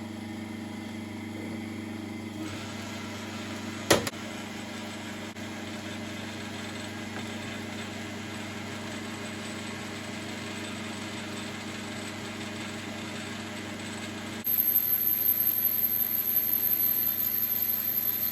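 9-inch South Bend lathe running a large boring head through aluminium plate under automatic feed, taking a 15-thousandths cut: a steady machine hum with cutting noise. There is a sharp click about four seconds in, and from about fourteen seconds in the sound is much louder, with a high thin whine.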